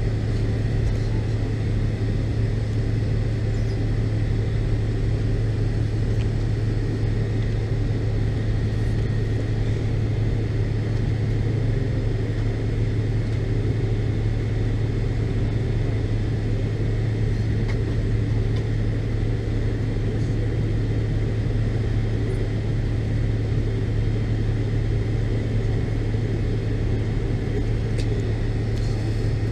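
Steady cabin drone inside a McDonnell Douglas MD-82 airliner with its rear-mounted Pratt & Whitney JT8D engines running at low power: an even rumble with a strong low hum, holding level throughout.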